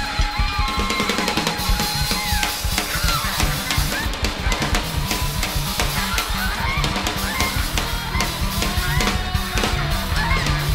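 Free-jazz noise-rock band playing: busy, fast drum-kit strikes and a pulsing bass line under short, gliding high lines from the lead instruments.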